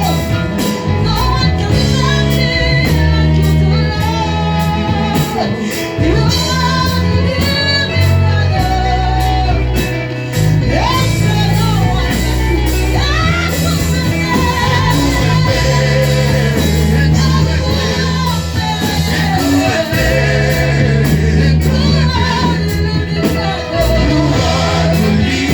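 Gospel worship song: singers over a band with a prominent deep bass line and a steady beat.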